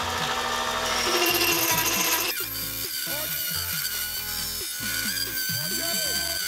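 Mini lathe parting off a spinning metal workpiece: the parting tool cuts with a continuous scraping noise, loudest in the first two seconds, then a steadier whine.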